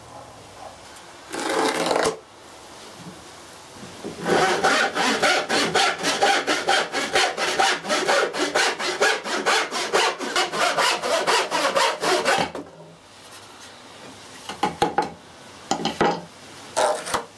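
Back saw cutting across a pine board with fast, even strokes, about four a second, for about eight seconds. A shorter burst of the same rasping comes before it, and a few brief ones near the end.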